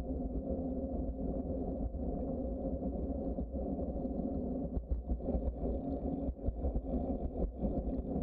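Steady low rumble of wind and tyre noise picked up by a camera on a moving bicycle, turning more uneven and gusty from about five seconds in.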